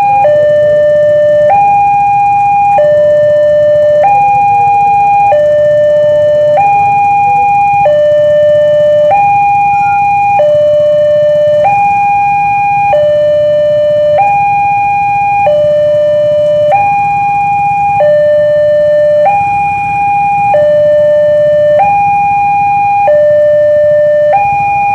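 Railway level-crossing warning alarm sounding with the barrier down: a loud electronic two-tone signal alternating evenly between a higher and a lower note, each held about a second and a quarter, warning that a train is approaching.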